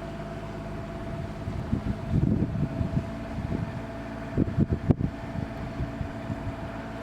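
Outdoor wind buffeting the microphone in irregular low gusts, strongest about two seconds in and again around the five-second mark, over a steady faint whine and low rumble.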